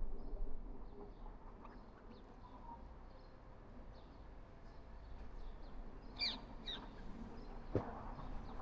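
Birds calling faintly, with short high chirps scattered throughout and two clearer falling chirps about six seconds in. A single sharp knock near the end.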